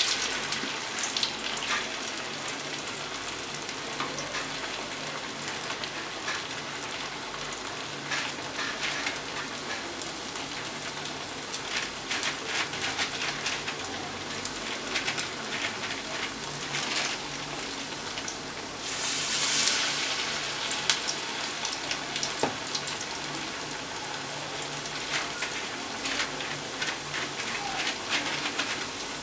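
Drumstick-leaf rice-flour rotti deep-frying in hot oil in a kadai: steady sizzling with dense crackling from the bubbling oil, swelling to a louder sizzle for about a second about two-thirds of the way through.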